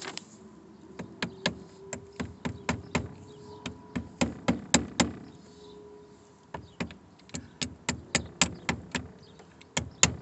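A new shift lever knob being tapped onto the column shift lever of a 1989 Chevy Caprice to drive it fully home: two runs of quick, sharp knocks, a few per second, with a short pause between them.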